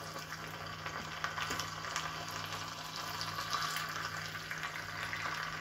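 Hot oil poured from a stainless steel saucepan into a glass jar of onion seeds, harmal seeds, chopped green pepper and crushed red garlic, sizzling steadily with small crackles as it fries the ingredients.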